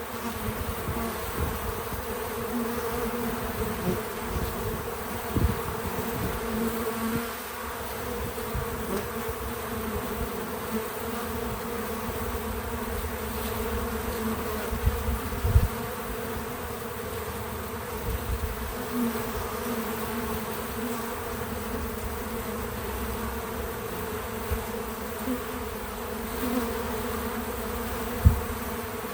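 Honey bees buzzing around a feeder, a steady hum of many wings. A few short, low thumps stand out, the loudest about 15 seconds in and again near the end.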